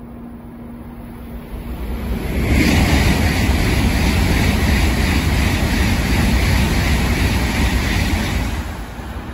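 N700S Shinkansen train passing at high speed: a loud rushing noise builds quickly about two seconds in, holds steady for about six seconds, then fades near the end.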